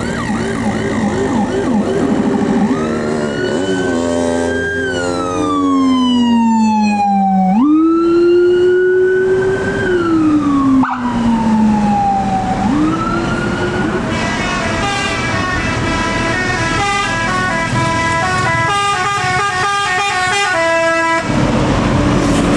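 Tour bus 'telolet basuri' musical air horn. It sounds long siren-like sweeps, each rising quickly and then falling slowly, then a fast stepping multi-note melody about two-thirds of the way in. The bus engine runs underneath throughout.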